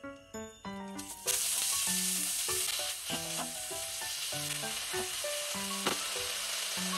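Sliced beef sizzling in hot sesame oil in a pot and being stirred. The hiss starts suddenly about a second in as the meat goes into the oil. Light background music plays throughout.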